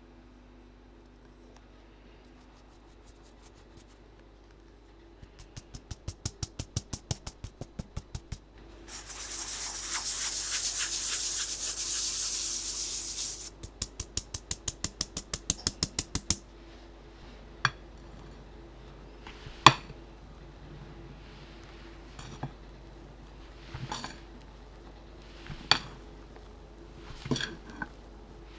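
A fine-mesh sieve of flour is shaken over a glass bowl in quick rattling taps, about five a second. Then comes a steady high hiss as the flour sifts through the mesh, then another run of quick taps. After that, a utensil folding the batter knocks against the glass bowl in single soft knocks every couple of seconds.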